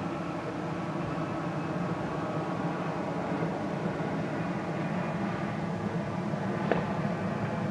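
Steady low rumble of an airplane passing overhead, slowly growing louder. A single sharp pop near the end.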